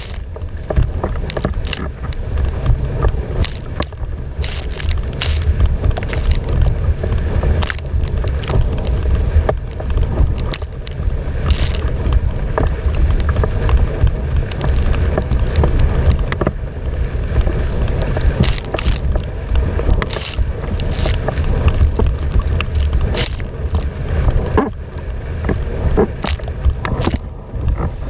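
Wind noise on the microphone, a steady low rumble, over water rushing and splashing against a windsurf board sailing at speed, with frequent irregular slaps of spray.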